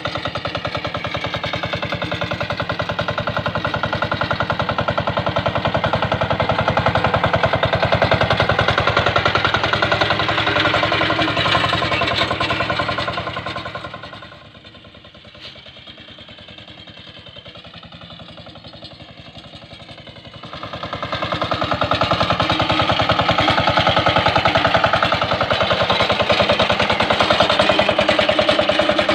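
Kuliglig hand tractor's single-cylinder diesel engine running steadily under load while plowing, with a fast, even chug. About halfway through it goes much fainter and distant for several seconds, then comes back loud and close.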